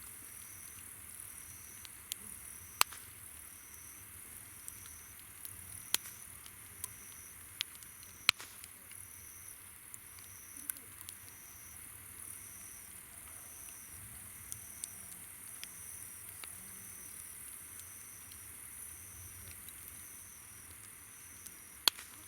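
Campfire crackling, with a few sharp pops, over summer night insects: a steady high-pitched trill and a chirp repeating roughly every three-quarters of a second.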